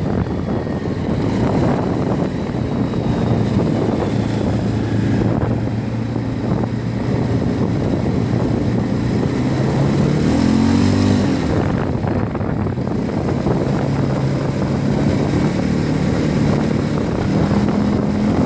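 Quad bike (ATV) engine running under way, with a steady low rumble underneath; the engine note rises about ten seconds in, drops back, and climbs again near the end as the rider accelerates.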